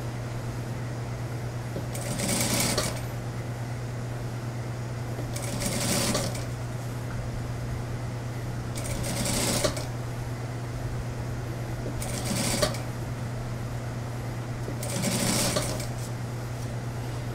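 Industrial single-needle sewing machine stitching in short runs of about a second, five times, roughly every three seconds, with a steady hum in between. The tailor is easing fullness into a suit-jacket sleeve cap a little at a time.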